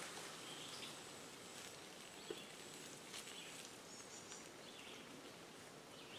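Faint woodland ambience: the rustle of a bicycle moving off through leaf litter fades away in the first second, leaving a quiet hiss with a few distant bird chirps and one small tick a little over two seconds in.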